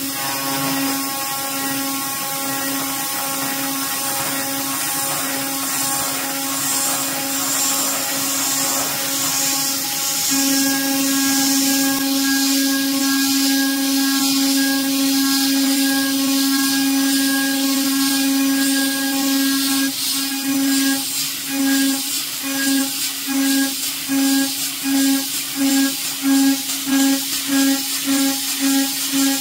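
PrintNC Pro CNC router spindle milling 6061 aluminium plate: a steady high cutting whine over the hiss of the mist coolant nozzle. The whine grows louder about a third of the way in. In the last third it pulses evenly, about twice a second.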